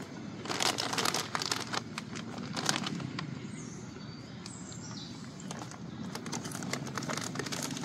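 Plastic snack bag crinkling as it is handled, in a burst of about two and a half seconds near the start and again over the last two seconds. A few faint bird chirps come in between, over a low steady background rumble.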